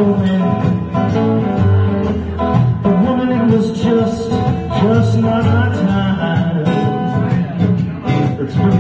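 Electric guitar through a small amp and an acoustic guitar playing a blues instrumental break together: a lead line with bent notes over strummed accompaniment.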